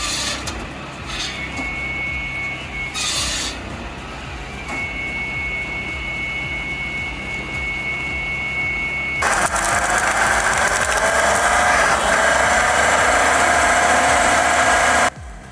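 Wood-cutting machine running with a steady high whine and rubbing noise, then a much louder, harsh cutting noise from about nine seconds in that stops abruptly near the end.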